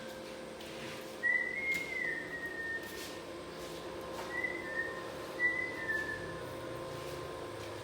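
A person whistling a few slow notes of a tune, in two short phrases, the first note sliding up and then slowly down. A faint steady hum runs underneath.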